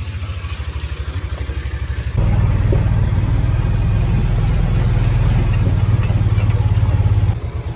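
Utility vehicle's engine chugging at a slow, even beat, then opening up about two seconds in and running louder for about five seconds before easing back off near the end.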